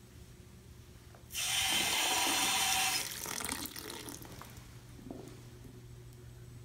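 Bathroom sink faucet with wrist-blade lever handles turned on: water comes on suddenly about a second in and splashes into the basin in a strong stream for a couple of seconds, then eases to a thin stream and stops as the tap is shut.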